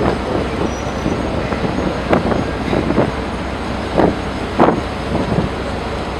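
A tugboat's engines running steadily, with a few short louder sounds about two, four and four and a half seconds in.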